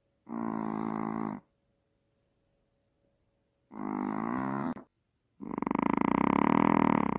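A Maltese snoring in its sleep: three loud, pitched snores, each about a second long, the last one the longest and loudest with a fast flutter.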